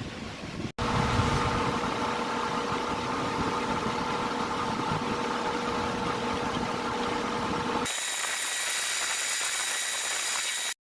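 Grizzly G4003 metal lathe running under power, a steady mechanical hum with several held tones while the block in the 4-jaw chuck is drilled and bored. About eight seconds in it changes to a thinner, higher whine, then cuts off abruptly near the end.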